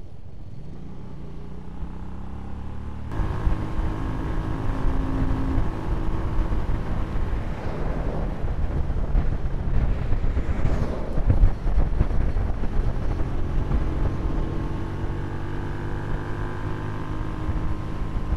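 Hyosung 250cc V-twin motorcycle engine running on the road, heard from a camera mounted on the bike, with wind on the microphone. The engine note rises as the bike accelerates in the first few seconds, then the sound turns abruptly louder and runs steadily; an oncoming truck passes about ten to twelve seconds in.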